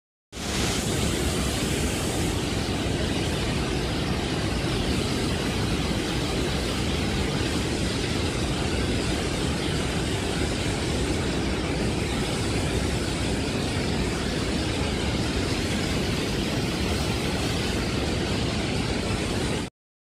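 Waterfall plunging through a rocky gorge: a loud, steady rush of white water. It starts abruptly just after the beginning and cuts off just before the end.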